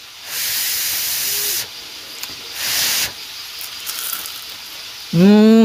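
Two short bursts of hissing, the first just over a second long and the second shorter, then near the end a brief loud voiced sound from a person that rises and falls in pitch.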